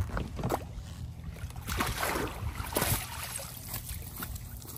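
Knocks and thumps of handling aboard a small fishing boat, with a brief rushing noise about two seconds in, over a steady low hum.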